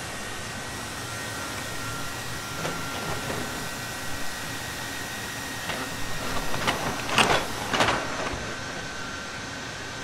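Boston Dynamics' electric Atlas humanoid robot running, its joint motors giving a steady hum with a faint whine. A handful of sharp knocks and clicks come between about six and eight seconds in as it moves and steps.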